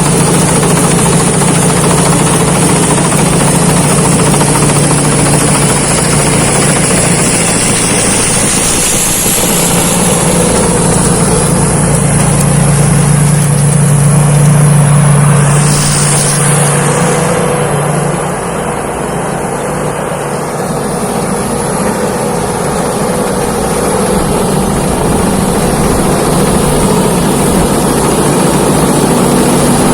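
Rice combine harvester running steadily in the field, its diesel engine droning under the clatter of the harvesting machinery. The sound drops a little for a few seconds past the middle, then comes back up.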